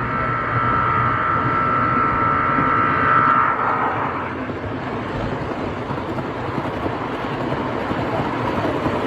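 HO scale model locomotive's horn sounding one long steady note for about three and a half seconds, dropping away as it cuts off, followed by a steady rushing noise of the model train running.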